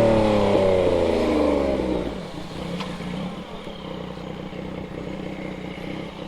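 Yamaha MT-09's three-cylinder engine coming off the throttle, its note falling, then dropping to a quieter, steady idle about two seconds in.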